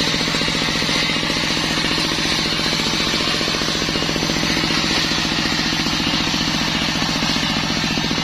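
Circular sawmill running steadily while cutting waru wood, its drive giving a rapid, even chatter under a constant hiss from the blade.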